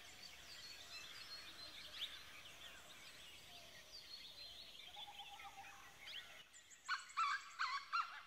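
Faint birdsong: many small birds chirping, with a louder run of about five short repeated calls in the last second and a half.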